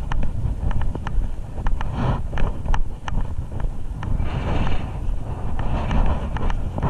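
Wind buffeting a body-worn action-camera microphone, a heavy, steady rumble, with many sharp, irregular clicks scattered through it.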